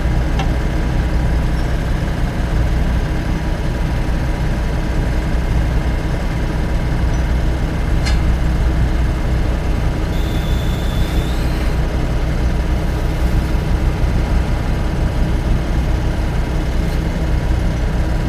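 Engine of a truck-mounted welding rig's engine-driven welder running steadily with a constant low hum.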